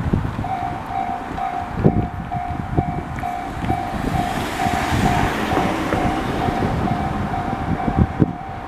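Electronic level-crossing alarm starting to ring about half a second in, a repeating single-pitched ding a little over twice a second, over a rumble with scattered low thuds.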